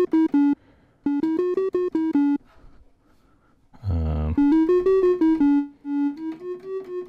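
Octave-Plateau Kitten II single-oscillator analogue synthesizer playing short single notes in a quick up-and-down figure. The notes change shape as its ADSR envelope is adjusted: after a pause there is a lower, fuller note about four seconds in, then longer notes, and near the end each note swells and fades.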